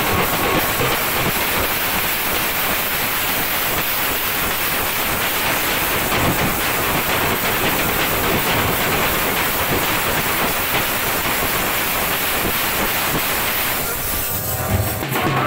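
A band-baja troupe's massed stick-beaten drums and large hand cymbals played loudly together, a dense, unbroken clatter with no tune. Near the end the clatter thins and a melody comes in.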